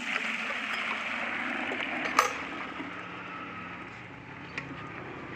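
Buffalo milk being poured from a large aluminium pot into a plastic bucket, a steady splashing rush that eases off after about three seconds. A sharp clink about two seconds in is the loudest moment.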